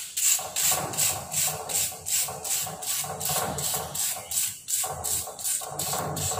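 Sandpaper rubbing a strip of magnesium ribbon in quick back-and-forth strokes, about three a second. The sanding scrubs off the dull magnesium oxide layer to expose shiny metal.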